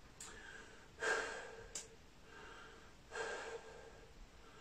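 A man breathing hard to catch his breath after a set of press-ups, with two heavy exhalations about two seconds apart.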